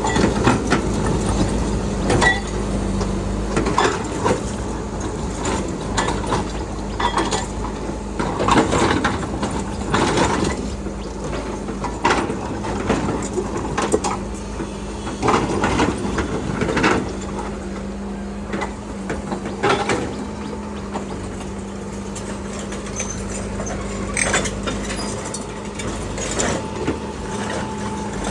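Hitachi Landy excavator running with a steady engine drone, under frequent irregular knocks and scrapes as it works.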